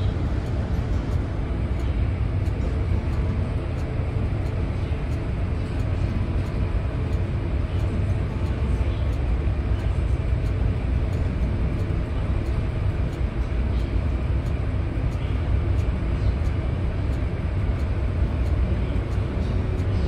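Steady low rumble of the Kokudo Kyushi ferry Hayanami's engines and hull, heard inside the passenger cabin while the ship is under way.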